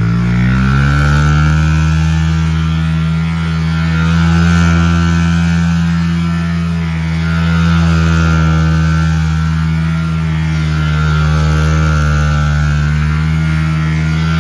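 Small engine of a mini dirt bike running under steady throttle as it circles on grass, its pitch rising over the first second and then holding with slight rises and falls.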